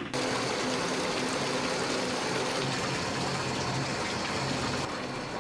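Water gushing steadily from a tap into a bathtub. It starts abruptly and gets a little quieter near the end.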